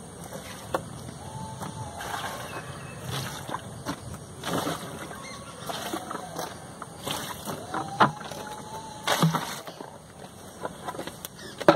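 Water splashing onto the soil of potted seedlings now and then as they are watered by hand.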